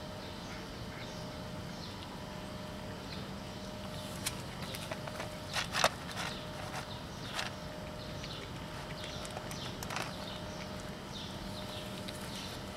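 Cat crunching dry kibble: a few sharp crunches in the middle, the loudest about six seconds in, with another a few seconds later. A steady low hum and faint high chirps run underneath.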